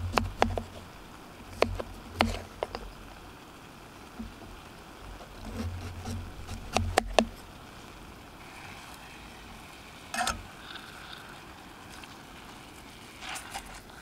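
A series of sharp clicks and knocks with dull low thuds, several in the first half and a quick cluster about seven seconds in, over a faint steady hiss.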